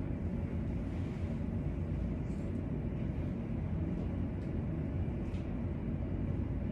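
Steady low rumble of room noise, with a few faint clicks.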